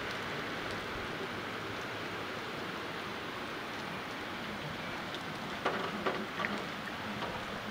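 Steady rain falling on a street and pavement, an even hiss. A few short, sharp taps stand out about two-thirds of the way through.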